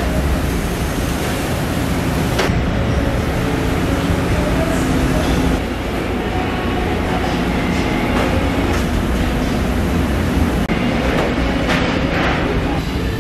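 Food-factory machinery running with a loud, steady rumble, with a few sharp metal clanks, one about two seconds in and several near the end.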